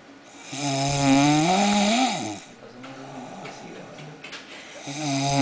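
A person snoring: a long snore of about two seconds that rises in pitch and then drops, followed near the end by another starting the same way.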